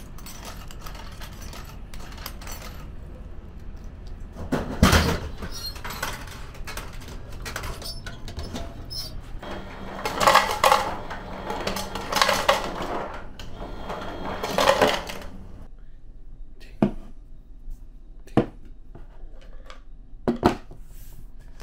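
Ice dispenser dropping ice cubes into a plastic cup in three clattering bursts, over a steady machine hum. Before that, a can drops into a vending machine's tray with a heavy thud about five seconds in. Near the end come a few light knocks of cans being set on a wooden table.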